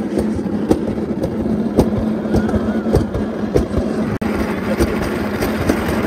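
Alpine coaster (mountain bobsled) sled running along its metal rail track: a steady rumble and rattle with many quick knocks from the wheels, broken by a brief drop-out about four seconds in.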